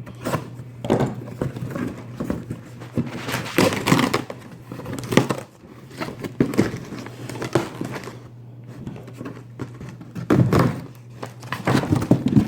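A cardboard retail box and its plastic packaging being pried and pulled open by hand: irregular rustling, crinkling and light knocks, with the box proving hard to open.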